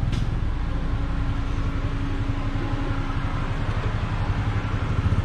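Motor vehicle engine running close by: a low rumble with a steady hum in the middle, becoming louder and rapidly pulsing near the end.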